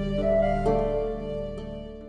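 Background music: soft, slow instrumental with sustained flute-like and harp-like notes, fading out near the end.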